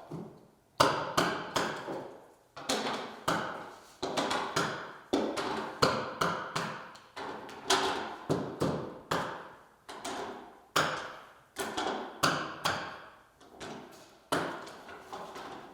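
Repeated hollow knocks and taps of PVC board model pieces being popped apart and handled, about two sharp knocks a second, each ringing briefly.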